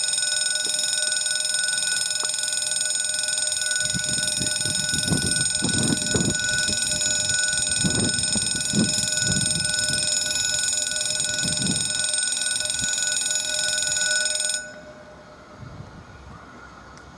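French level-crossing warning bell ringing with a continuous electronic tone while the barriers lower, then cutting off suddenly about three-quarters of the way through, once the barriers are down.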